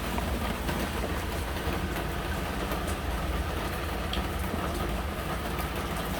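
A steady low mechanical hum, like a motor or fan running continuously, with a few faint light clicks.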